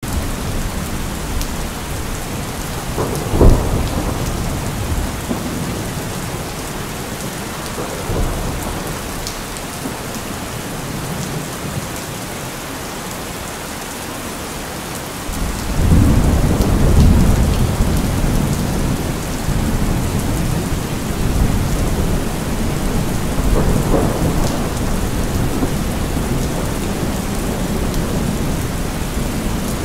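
Steady rain with rolls of thunder. A sharp, loud thunderclap comes about three and a half seconds in, smaller rumbles near eight and twenty-four seconds, and a long, heavy rumble from about sixteen seconds.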